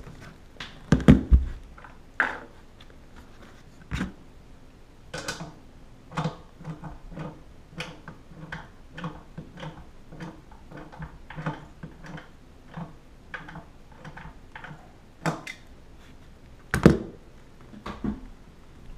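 Light clicks and taps of hand work at the base of a toilet, about one or two a second, with a few louder knocks about a second in and near the end.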